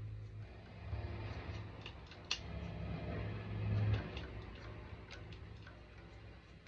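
Electric guitar strings picked without amplification: quiet low notes ringing and stopping, with sharp clicks of pick and fretted strings, loudest about four seconds in.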